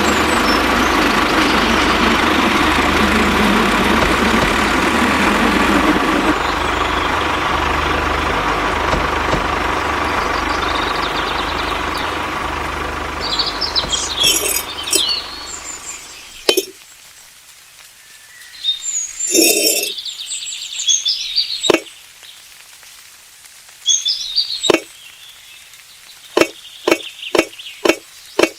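A steady, loud mechanical noise with a low hum fades out about halfway through. Sharp knocks follow, speeding up to about two a second near the end, with a few short bird chirps in between.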